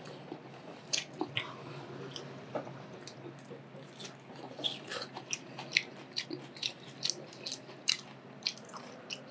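Close-miked chewing and biting while eating ahi poke: irregular wet mouth clicks and smacks, a few sharper than the rest.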